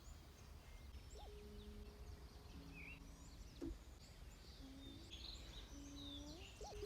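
Faint outdoor farm ambience: scattered distant bird chirps over a low rumble, with a few faint held tones.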